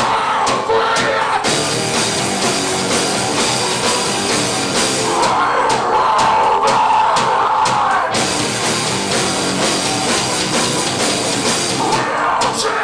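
A heavy rock band playing live, with distorted guitars and a drum kit. A sung vocal line comes in about five seconds in, drops out, and returns near the end.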